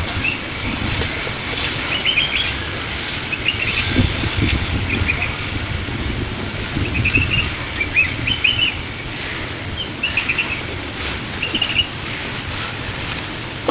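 Small birds chirping: short clusters of quick high notes repeated every second or so, over a steady low rumble.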